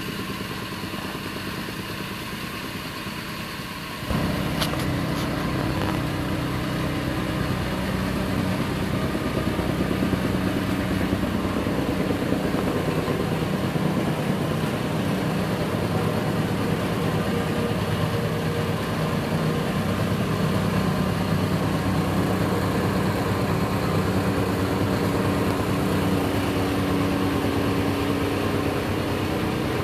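Petrol-engined jumping-jack rammer running quietly at first, then throttled up about four seconds in, its engine running loud and steady while the ramming foot pounds a dirt floor to compact it.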